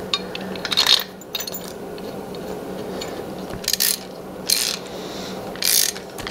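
Hand socket ratchet clicking in several short spells as a bolt is run in by hand on an engine block.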